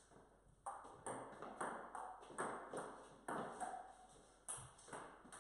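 A table tennis rally: a celluloid ball clicking off the paddles and bouncing on the table, about ten sharp clicks at roughly two a second, each with a short echo off the garage's hard walls and floor.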